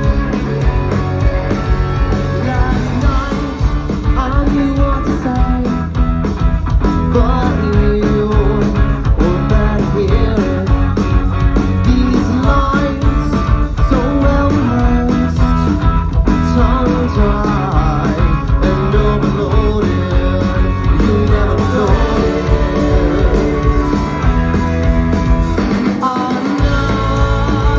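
Rock band playing a song live, with electric guitar and a sung lead vocal, loud and continuous; the bass drops out briefly near the end.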